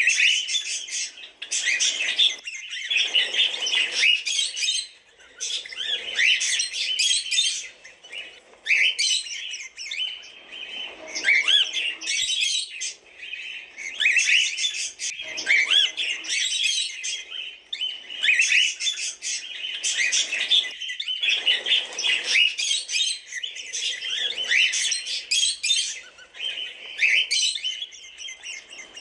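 Cockatiels chirping and calling in dense runs of high chirps, broken by brief pauses every few seconds.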